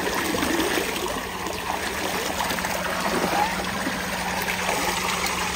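Water from a tubewell gushing steadily out of its outlet pipe and splashing into a concrete tank full of water.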